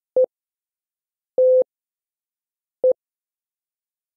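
Slow Morse code on a steady tone of about 500 Hz: a dit, a dah, then a dit, spelling E, T, E, with the dah of the next letter, N, starting right at the end.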